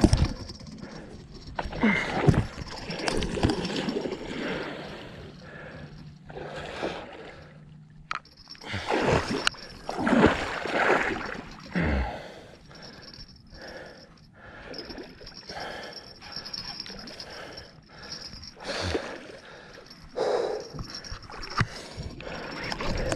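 Irregular water splashing and gurgling, mixed with a person's heavy, gasping breaths, as a large wels catfish is played close in.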